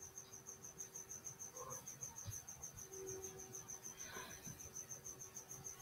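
Faint insect chirping: an even, fast train of high chirps, about seven a second, over a faint steady low hum.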